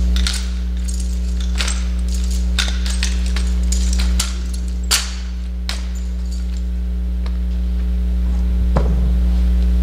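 Sharp slaps and clacks of drill rifles being tossed, caught and struck by hand in a rifle drill routine, a dozen or so irregular strikes with the loudest about five seconds in. A loud, steady electrical hum sounds under them throughout.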